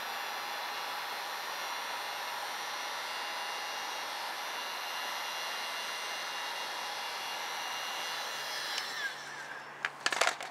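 Cheap Harbor Freight heat gun running, a steady blowing hiss with a thin fan whine, as it heats headlight protection film to make it pliable; it cuts off about nine seconds in. A few sharp clicks and knocks follow near the end.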